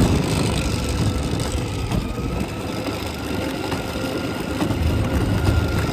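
12-volt Yamaha electric ride-on toy ATV driving along a concrete sidewalk: a steady whine from its motors and gearboxes over the rumble of its plastic wheels on the slabs.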